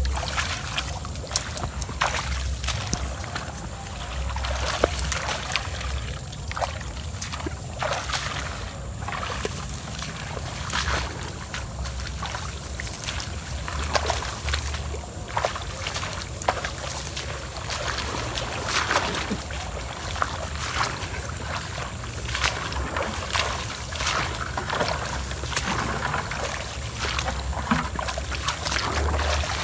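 Tall marsh grass rustling and swishing against legs and boots, with wet footsteps, as people wade through a waterlogged field; irregular crackles and rustles throughout, with low bumps of wind or handling on the microphone.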